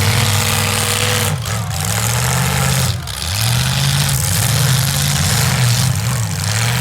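Demolition derby cars' V8 engines revving up and down over and over, the pitch rising and falling in waves about once a second.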